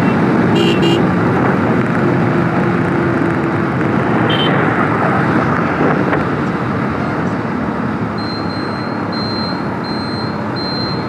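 Wind and road noise from riding a motorcycle along a highway in traffic, a steady rush heard over a phone microphone. A high electronic beep starts repeating at an even pace near the end.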